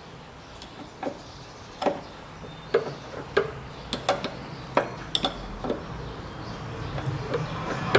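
A series of sharp, irregular metallic knocks and clicks, about a dozen, roughly one every half second to second, from hand work on a Daewoo Matiz steering rack while its play is checked and its adjuster is set.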